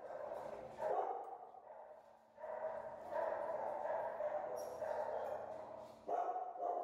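Dogs barking in stretches lasting a second or more, with short breaks between them.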